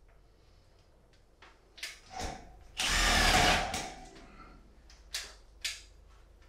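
A power drill runs in one short burst of about a second, with a few sharp clicks just before and after it.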